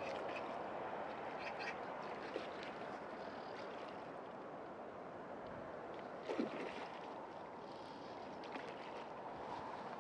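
Steady outdoor background noise with a few faint ticks, and a brief low thump about six seconds in.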